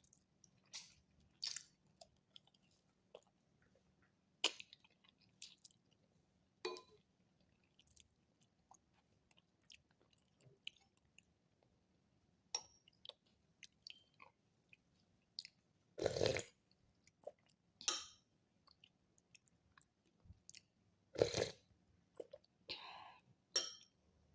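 A person chewing food, with many short, scattered mouth clicks and two louder noises in the second half.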